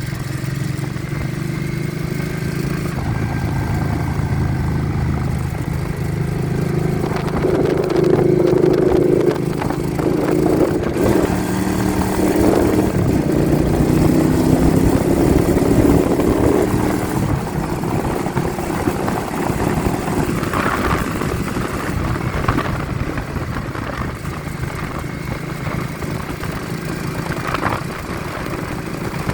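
A vehicle engine running on the road, its pitch climbing and dropping several times as it accelerates, under heavy wind buffeting on the phone's microphone.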